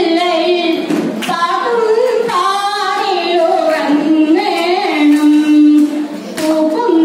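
A woman singing solo into a microphone, amplified. She holds long notes and slides and wavers between pitches in ornamented phrases.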